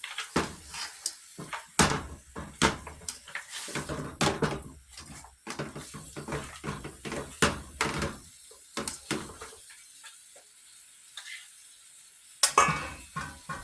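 A metal utensil clinking and knocking against a pot of curry goat: a quick, irregular run of clinks and scrapes for most of the stretch, a short lull, then a louder clatter near the end.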